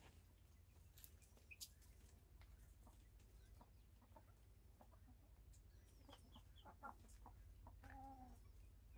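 Backyard hens clucking faintly, with a few short calls scattered through and a clearer, longer cluck near the end.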